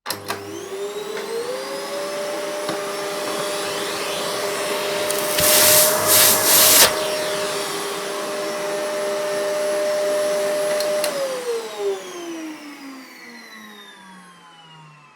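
Vacuum cleaner switched on, its motor whine rising to a steady pitch within about a second and a half, then running with a rush of air that gets louder for a moment about five to seven seconds in. It is switched off about eleven seconds in, and the whine falls away as the motor spins down.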